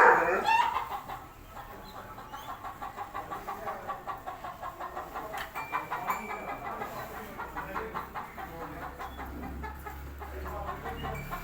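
Chickens clucking in a steady run of short repeated calls a few times a second, after a brief loud sound at the very start.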